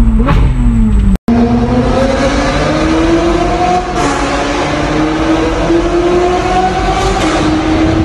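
Ferrari engine heard from inside the cabin under acceleration in a road tunnel. Its note climbs in pitch, drops sharply at an upshift about four seconds in, then climbs again. Just before, a second Ferrari's engine note falls away and is cut off abruptly about a second in.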